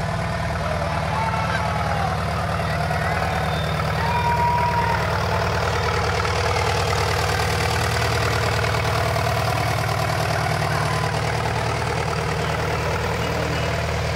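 A large vehicle engine idling steadily, a low, even rumble.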